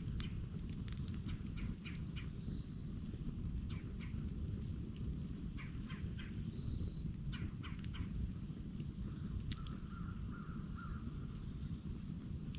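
Campfire crackling, with scattered sharp pops and snaps over a steady low rush. About ten seconds in, a short bird call.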